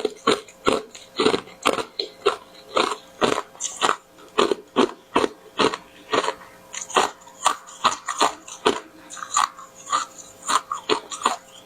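A mouth biting and chewing large, crunchy granules of tartary buckwheat: a run of sharp, crackling crunches, about two or three a second, irregular in spacing.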